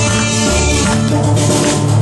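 Instrumental backing music with a steady, repeating bass line.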